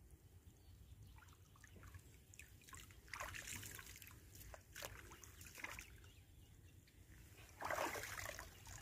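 Water sloshing and trickling as a cast net is hauled by hand out of shallow water, with short splashy bursts and a louder burst of splashing near the end.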